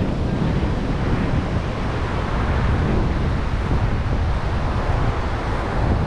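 Wind blowing on the microphone, an unsteady low rumble, over a steady wash of surf.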